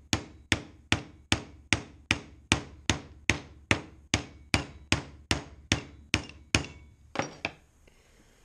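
Steady hammer blows on a small furnace motor, about two and a half a second, each a sharp strike with a brief ringing tail, as the motor is knocked at to force it apart. The blows stop about seven and a half seconds in.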